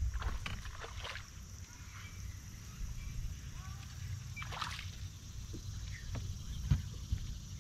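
Water splashing as a hooked bass is fought to the surface beside a bass boat and lifted out, a few sharp splashes with the strongest about four and a half seconds in, then a single thump near the end. A low wind rumble on the microphone runs underneath.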